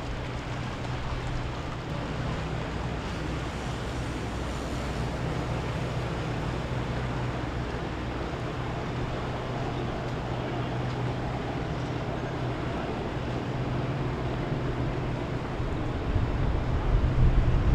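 Motorboat engines droning steadily as boats pass, over the wash of water and wind on the microphone; the sound grows louder near the end.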